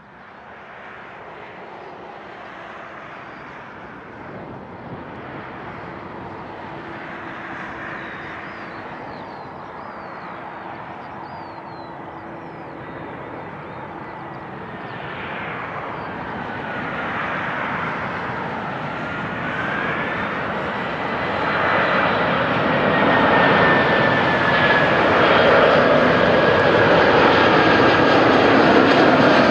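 The four CFM56 turbofan engines of an Airbus A340-300 on final approach, growing steadily louder as the airliner nears. A high engine whine dips in pitch and climbs back midway, then holds steady over the rising rumble.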